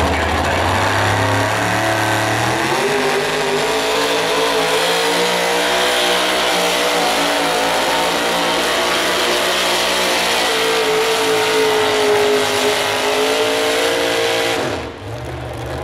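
A 1967 Chevrolet modified 4x4 pulling truck's supercharged engine runs at full throttle while it drags the weight sled. It climbs from low revs to high revs about three seconds in and holds there. Near the end it drops off as the pull finishes.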